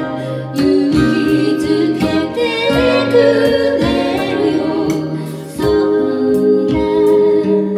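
A woman singing a slow song into a microphone, accompanied by strummed acoustic guitar and keyboard. Her line pauses briefly about five and a half seconds in.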